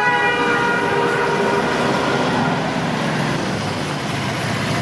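Roadside traffic noise with a steady low rumble, and a vehicle horn held for about a second and a half at the start.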